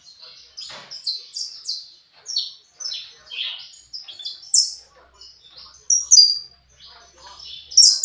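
Caged saffron finch (canário-da-terra) singing: a fast, continuous run of short, high chirps, loudest around the middle and again near the end.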